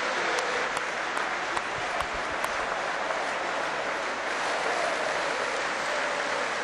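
Large stadium crowd applauding steadily, a dense, even clapping.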